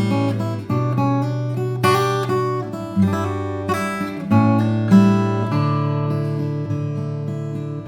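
Morris Special W60 acoustic guitar played solo: plucked melody notes over held bass notes, with a strummed chord about two seconds in and another a little past four seconds, and the notes ringing out and slowly fading near the end.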